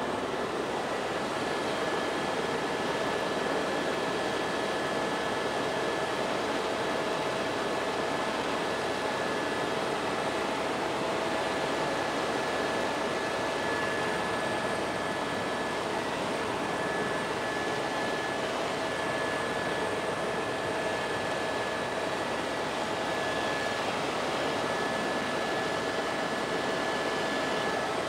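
Helicopter heard from inside the cabin in flight: a steady engine and rotor noise with a constant whine of several tones over it.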